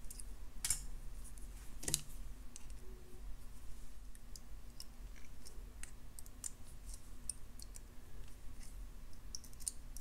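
Jewelry pliers clicking and ticking against thin wire as it is bent and wrapped into a loop. There are two louder clicks in the first two seconds, then scattered light metallic ticks.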